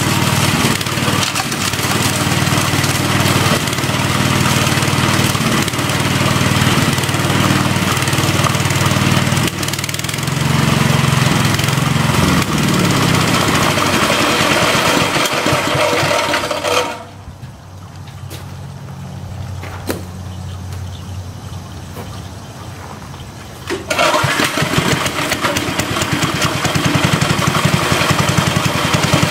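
Small gasoline engine running a homemade impact mill, loud and steady with a harsh noisy hiss over the engine note. About two-thirds of the way in it drops much quieter for about seven seconds, the harsh noise gone and only the low engine sound left, then comes back up to full loudness.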